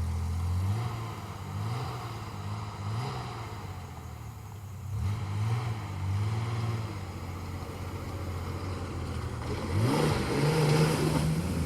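Off-road vehicle engine revving up and down repeatedly while driving through a creek crossing. From about ten seconds in the engine rises in pitch and a rush of splashing water joins it.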